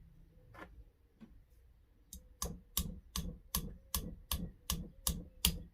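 Light, even tapping on a retaining pin being driven into a CZ 75 SP-01 pistol frame, about three taps a second from about two seconds in, after a couple of small clicks. The pin is tight and won't seat fully without tapping.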